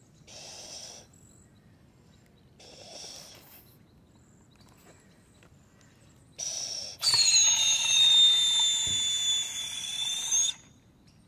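A boy blows twice into the balloon of a balloon-powered toy jet car, two short breathy puffs. About six seconds in the balloon is let go, and air rushing out through the car's screamer nozzle gives a loud, shrill two-tone whistle that runs for about four seconds and cuts off.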